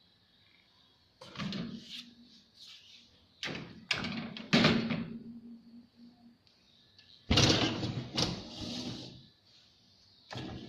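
Knocks and sliding clatters from a Dawlance dishwasher's door and racks being handled, about seven in all, the loudest about four and a half and seven seconds in.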